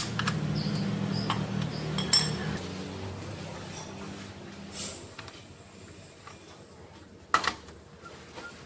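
Metal clinks of a 14 mm wrench working the exhaust mounting bolt on a Honda PCX 150 as it is loosened: several sharp, briefly ringing clinks in the first two seconds, another about halfway, and a louder knock near the end.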